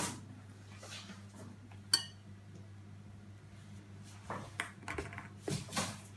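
Small hard objects being handled, clicking and knocking together, with one sharp click that rings briefly about two seconds in and a few more rustling knocks near the end, over a steady low electrical hum.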